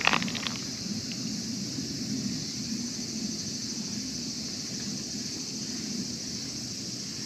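A steady, high-pitched chorus of insects, with a low rustling underneath and a few soft knocks in the first half-second.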